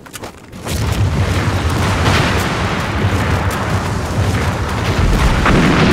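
Film battle sound effects: an explosion about half a second in, then a long low rumble of blasts with scattered gunshots cracking through it.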